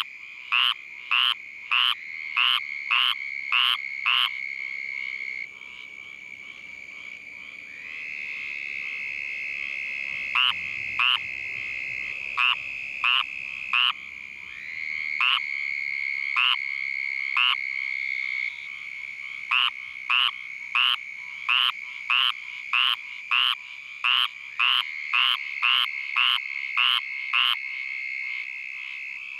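Squirrel treefrog calling: short, raspy notes repeated just under two a second. The calls stop for several seconds after about four seconds, come back sparsely, then run regularly again, over a steady high-pitched background drone.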